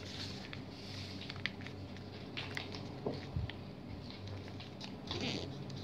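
A sheet of paper being folded and creased by hand on a tabletop, heard as faint rustling with scattered small taps and clicks of fingers on the paper.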